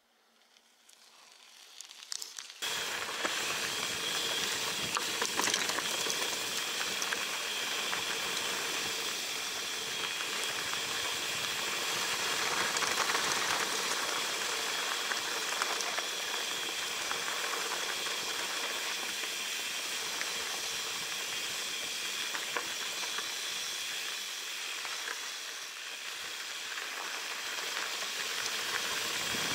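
Steady hiss of wind on the microphone and tyre noise from a mountain bike descending a rocky dirt singletrack, with many small clicks and rattles from the bike over the rough ground. It comes in suddenly about two and a half seconds in, after a short rise from near silence.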